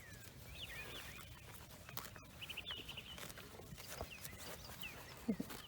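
Faint farmyard background: short high chirps dotted throughout, a few sharp knocks around the middle, and a brief low animal call near the end.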